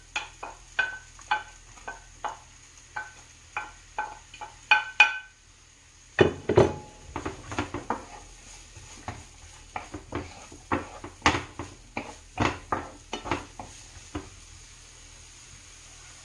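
A wooden spatula taps and scrapes chopped onions off a ceramic plate, each tap ringing briefly, for about five seconds. Then come irregular knocks and scrapes of the spatula stirring the onions in a hot frying pan, with faint sizzling from the oil.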